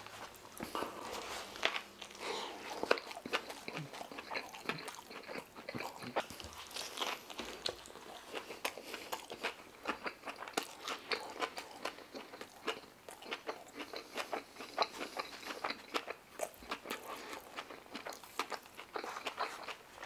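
Close-miked chewing and biting of a chicken shawarma wrap, with many short wet mouth clicks throughout.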